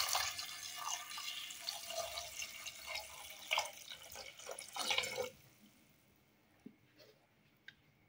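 A stream of water poured into a stainless steel pot over chopped apple and herbs, splashing and gurgling. The pour stops about five seconds in, followed by a couple of faint drips.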